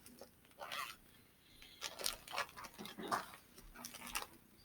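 Plastic bag rustling and crinkling in short, irregular bursts as it is handled.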